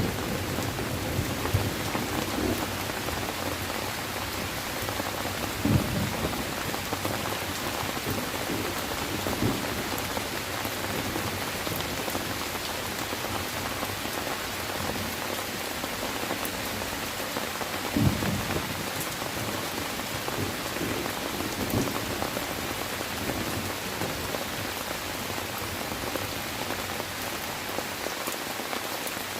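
Steady rain falling, with a few brief low rumbles of thunder: one near the start, others about six, nine, eighteen and twenty-two seconds in.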